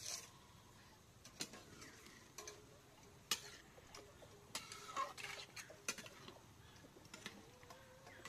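Metal spatula clinking and scraping against a metal pan as food is stirred: an irregular scatter of light ticks and taps, the sharpest about three seconds in.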